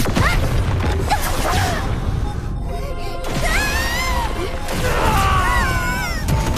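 Animated battle soundtrack: dramatic score over a heavy, continuous low rumble, with crash and whoosh effects. High wavering tones glide up and down about halfway through and again near the end.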